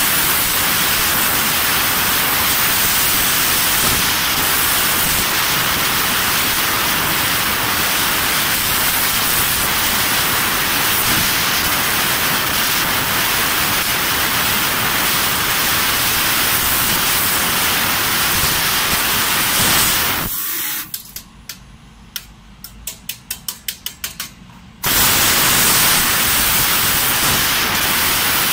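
Fiber laser tube cutter's assist gas jetting from the cutting head onto a steel tube, a loud steady hiss. About 20 seconds in the hiss cuts off for some four seconds, with a run of about a dozen quick clicks in the gap, then comes back on abruptly.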